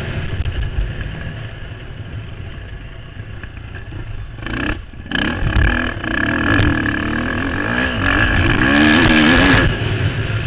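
Motocross bike engine heard from the rider's own bike: lower throttle at first, a brief cut just before halfway, then revving hard under load, with the pitch rising and falling as the rider works the throttle through the gears before easing off near the end.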